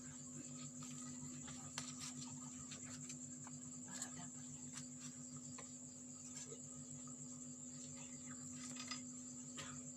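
Faint background hum with a steady high tone and scattered small clicks and knocks.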